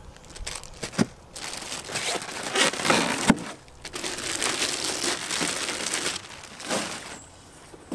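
Clear plastic packaging bag crinkling and rustling as a boxed tow mirror is lifted out of its foam packing and unwrapped, with a sharp tap a little past three seconds in.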